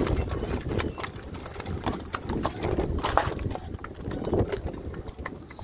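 Hooves of a pair of carriage horses clip-clopping on a paved road, an uneven run of sharp knocks over a steady low rumble.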